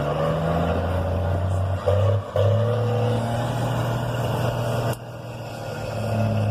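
Truck engine held back by its engine brake on a downhill, a steady low drone. It breaks briefly twice around two seconds in, and drops about five seconds in before building back up.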